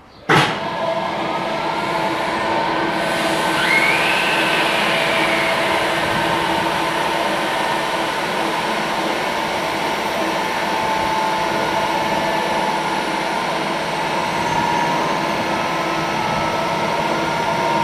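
BLS Ae 4/4 electric locomotive standing with its cooling blowers and electrical equipment running: a steady fan noise with a few held hum tones. It starts suddenly with a brief loud thump just after the start, and a short rising-and-falling whine comes about four seconds in.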